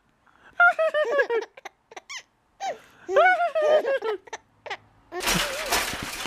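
Baby laughing and squealing in two short bouts, about half a second in and again about three seconds in, while being tickled at the cheeks. Near the end a steady rustling noise comes in.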